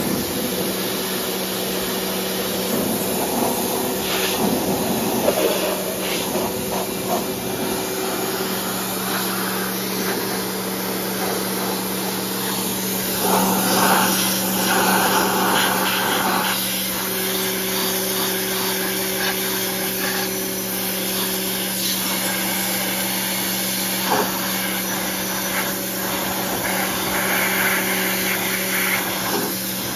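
Pressure washer running with a steady motor hum, its water jet hissing against a lawn mower deck; the spray noise swells and fades as the wand moves over the deck.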